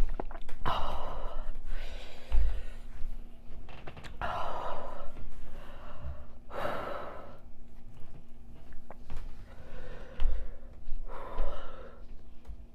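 A woman gasping and breathing heavily through her mouth, a series of loud breaths about every two seconds, from the burn of extra-spicy noodles. A couple of low bumps come in between.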